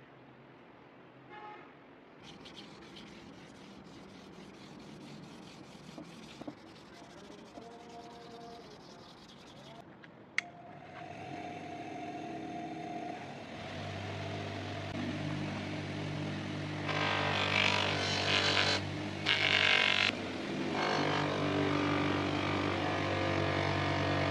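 Electric polishing motor with a tapered spindle, switched on after a sharp click about ten seconds in, then running up to a steady hum. From about two-thirds of the way in, a cleaver blade is pressed against the spinning buffing wheel, adding a louder hiss that drops out briefly twice as the blade is lifted.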